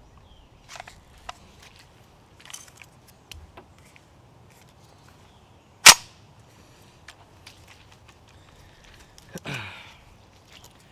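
Kel-Tec PLR-16 pistol's action being worked by hand to clear a repeated failure to extract: a few light metal clicks, then one loud, sharp snap of the action about six seconds in.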